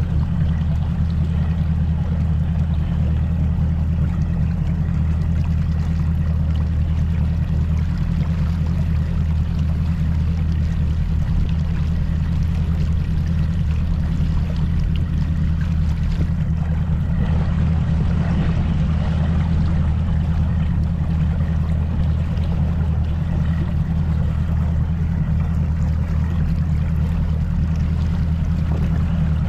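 Mercury Pro XS 200 outboard running steadily under way on a Nitro Z19 bass boat: a constant low engine drone with water and wind rushing past.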